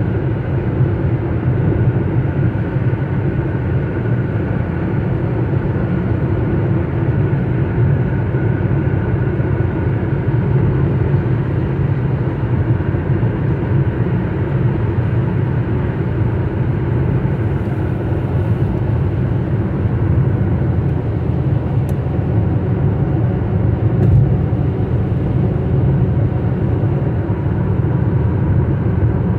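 Steady low rumble of a car's road and engine noise heard from inside the cabin while driving at highway speed.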